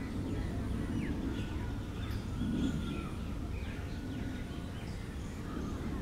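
Oriental magpie robin giving scattered short whistled notes and chirps, with one longer note about halfway, over a steady low background rumble.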